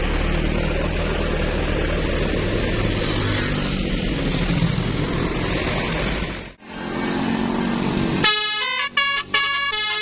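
A large tour coach passes close by with a loud engine rumble and road noise. After a brief break about two-thirds in, a multi-tone 'telolet' bus horn starts about eight seconds in, playing a tune of short, steady notes.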